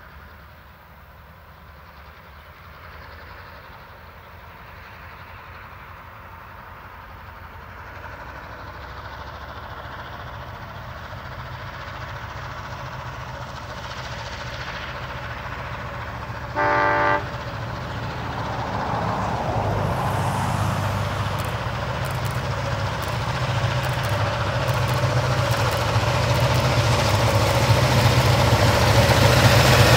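Heritage locomotive consist (4201, 4501 and 3801) approaching, growing steadily louder, with a deep engine drone building over the last ten seconds. About halfway through, one short warning blast sounds from a locomotive.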